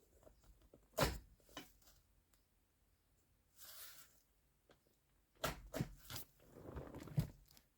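Scattered clicks, knocks and rustling of parts and tools being handled while a shifter kit is installed, with a sharp knock about a second in and a burst of several knocks and rustling near the end.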